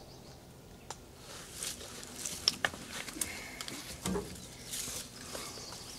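Faint scattered clicks and rustles of hunting gear being handled as a bow is taken from a rack on a pickup truck, with backpack and clothing rustling.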